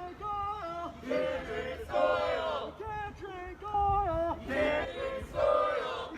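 A crowd of protesters chanting a short slogan together in loud repeated phrases, several voices at once.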